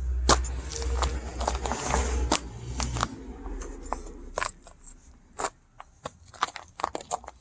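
Frozen dirt crunching and crackling in a run of sharp, irregular crunches. They thin out to sparser, quieter clicks after about four seconds. A low rumble runs under the first three seconds.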